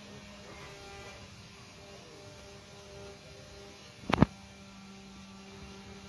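A faint steady hum, with one sharp doubled click a little after four seconds in, like a small metal part being handled.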